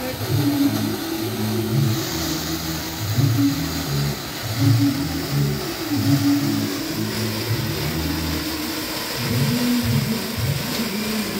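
A ground fountain firework spraying sparks with a steady hissing rush. Under it runs a low droning tone that shifts up and down in pitch.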